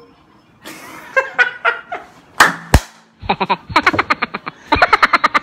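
A man laughing, then two sharp knocks as the phone or camera is handled, then a voice coming through a phone's loudspeaker in quick bursts, thin and cut off at the top like telephone audio.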